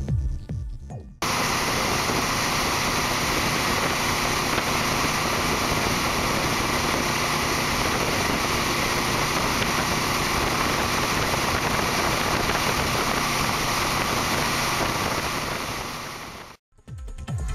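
Steady rushing wind noise over the microphone, mixed with motorcycle engine and road noise, from a touring motorcycle at highway speed. It starts abruptly about a second in and cuts off suddenly near the end.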